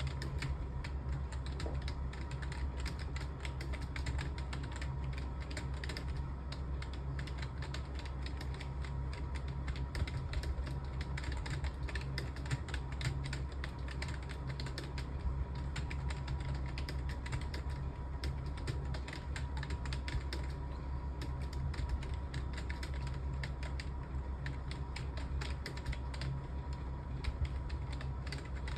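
Fast, continuous typing on a computer keyboard, many keystrokes a second, over a steady low hum.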